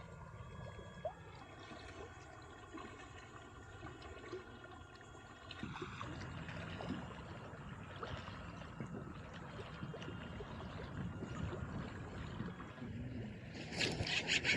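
Water lapping and trickling against a kayak's hull, with a steady hum that stops about six seconds in. A rapid rasping starts near the end.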